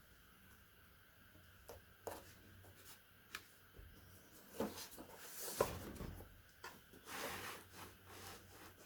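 Faint handling noises: scattered light clicks and taps with short stretches of rubbing as small objects are handled, over a faint steady hum.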